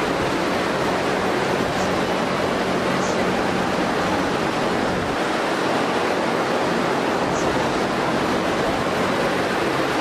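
Large cow-shed cooling fans running: a steady, even rushing of air with a low motor hum underneath.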